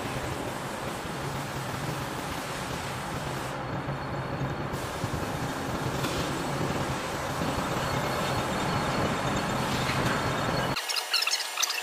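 Steady low hum and rumble of heavy machinery in a large steel warehouse, such as an idling diesel truck or the building's cranes and plant. Near the end it cuts abruptly to light metallic clicks and rattles.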